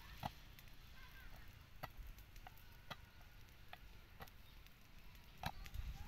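A basketball smacking into hands as it is caught during two-handed chest passes: a few sharp slaps spaced a second or more apart, the loudest near the start and near the end. Low wind rumble on the microphone underneath.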